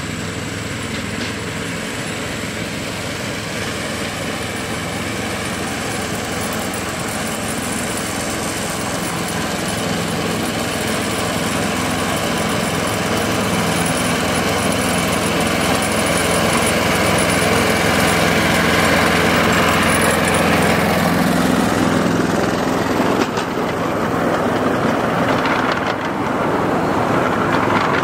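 Small engine of a ride-on miniature railway locomotive running steadily and growing louder as it approaches, passing about 21 seconds in. Then the loaded flatcars roll by with a rattling of small steel wheels on the track and a few sharp clicks.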